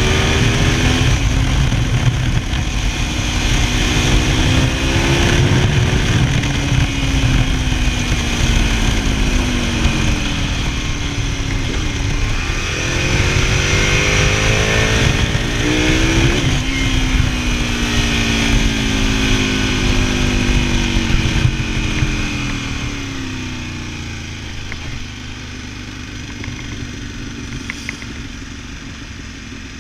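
Ducati Multistrada 1000DS air-cooled V-twin engine riding under a steady rush of wind, its revs rising and falling several times through the ride. After about 22 seconds the wind and engine grow quieter as the bike slows.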